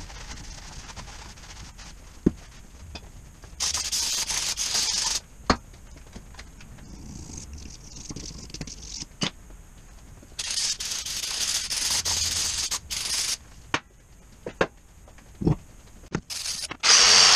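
Sharp metal clanks and knocks from handling a cast air-compressor cylinder block at a bench vise, with two stretches of hiss a second or three long that cut off abruptly. Near the end an angle grinder starts and runs loudly.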